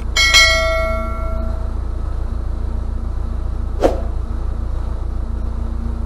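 A mouse click and a ringing bell chime from a subscribe-button animation, the chime fading out over about a second and a half. A steady low hum runs underneath, and there is a single short knock about four seconds in.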